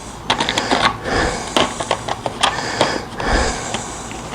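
Rustling and small clicks as loose bolts and assembly hardware are handled, in swells about every second and a half.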